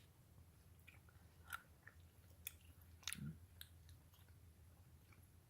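Faint chewing of a jelly bean: a few soft, scattered mouth clicks, with near silence between them.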